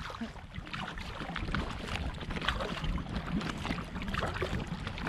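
Kayak paddles dipping and splashing in choppy seawater with irregular small splashes, over a steady low rumble of wind on the microphone.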